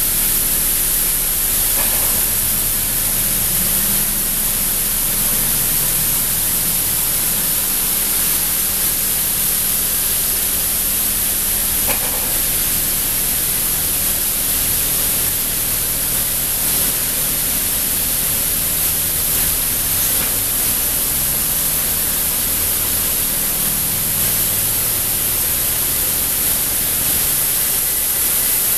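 MacNeil in-bay express car wash running: a steady, loud hiss of water jets spraying from the overhead arch onto a car, with a low machine hum from the spinning wrap-around brushes underneath that shifts in pitch now and then.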